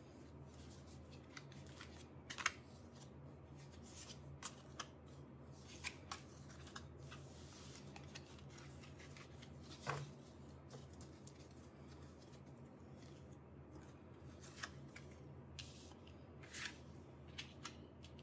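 Tarot cards being handled on a cloth: slid and picked from a fanned deck and laid down, making faint scattered swishes and light snaps, the sharpest about two and a half and ten seconds in.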